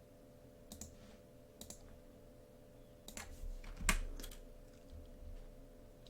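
A handful of scattered computer keyboard keystrokes and clicks, a few seconds apart, over a faint steady hum.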